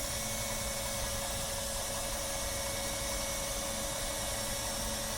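Running selective soldering machine giving a steady hiss and hum, with a faint constant tone and no change in level.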